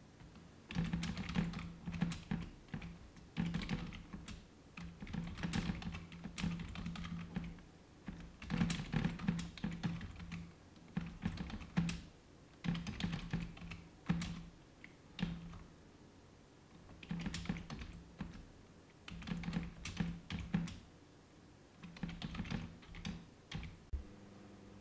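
Typing on a computer keyboard: quick runs of key clicks in bursts of a few seconds, with short pauses between them, stopping near the end.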